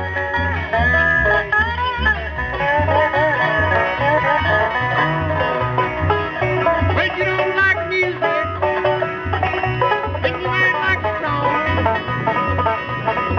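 Bluegrass band playing an instrumental break, banjo to the fore with plucked string melody over bass notes pulsing on the beat.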